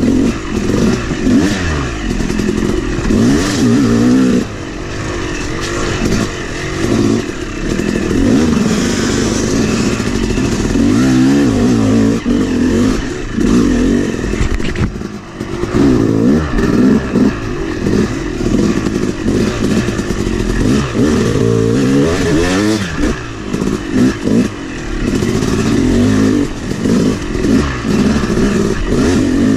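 Yamaha 250 two-stroke dirt bike engine revving up and down constantly as it is ridden over a slippery, rutted trail, heard from on the bike. Its pitch rises and falls with every blip of the throttle.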